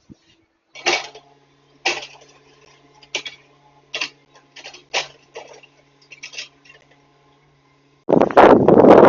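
Sharp clinks and knocks, about one a second, over a steady low machine hum, then a loud rushing noise near the end.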